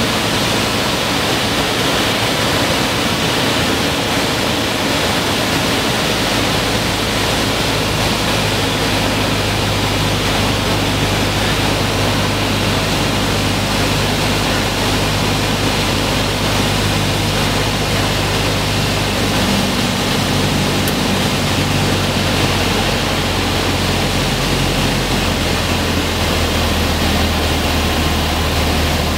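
Cessna 152's four-cylinder piston engine and propeller heard from inside the cockpit on landing approach: a loud, steady rush of air over a low engine drone. The engine note shifts in pitch a few times, around a third of the way in, about two-thirds in, and again near the end.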